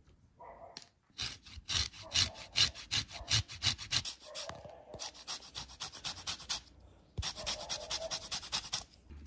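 Lemon peel being zested on a flat stainless steel rasp grater: quick rasping strokes, about four a second, in three runs with short pauses between them.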